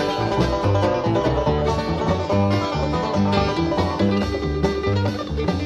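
Background music: a country-style tune with plucked strings over a bass line that steps from note to note.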